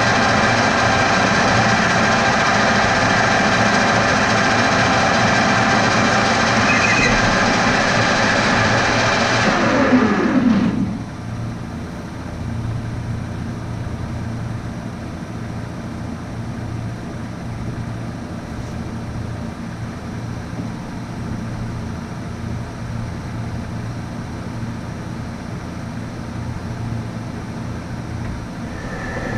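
Metal lathe running steadily, then switched off about ten seconds in, its pitch falling as it spins down, leaving a quieter steady hum.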